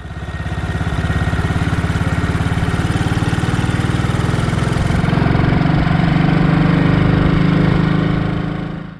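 Matchless G3L WD motorcycle's single-cylinder four-stroke engine running while under way, its pitch rising a little about halfway through as it pulls away. The sound fades in at the start and fades out at the end.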